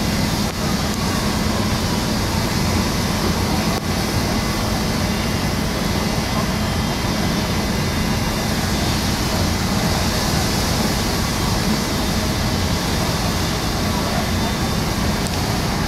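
Fire engine running steadily to drive its water pump: a constant low hum under an even hiss.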